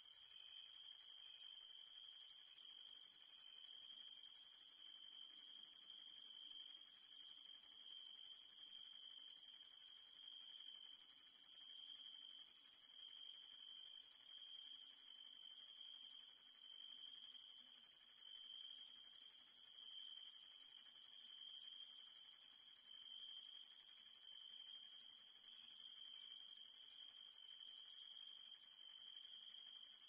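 Night insects trilling in a steady chorus: one high, shrill, continuous trill over a lower, steadier trill that pulses slightly, with a few short chirps in the first second or so.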